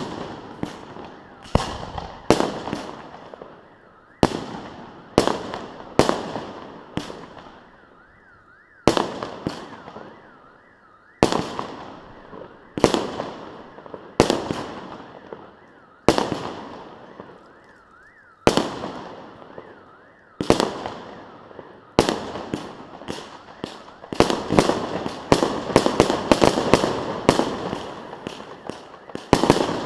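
Fireworks display: aerial shells bursting one every second or two, each bang trailing off in crackle. About two-thirds of the way through the bursts come thick and fast in a dense barrage.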